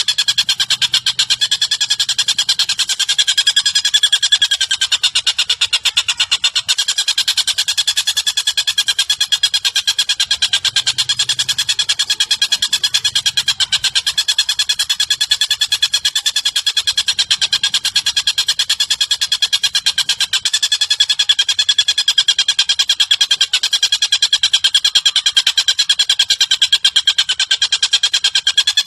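Recorded bird call playing as a master track: a continuous, fast, buzzy trill that runs without a break, its pulses too quick to count.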